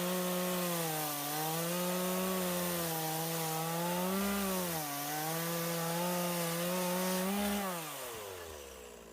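Chainsaw running at full throttle while cutting a log on a sawhorse stand. Its pitch sags briefly a few times as the chain bites into the wood. Near the end the revs glide down and the sound fades as the throttle is released.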